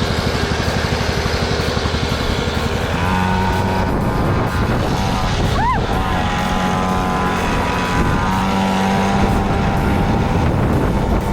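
Pocket bike's small engine running, its pitch rising and falling with the throttle. A brief high squeal sounds just past halfway.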